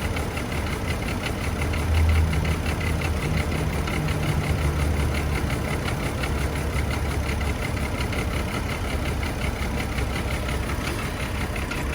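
Chevy Trailblazer engine idling steadily while misfiring on cylinders 3 and 5.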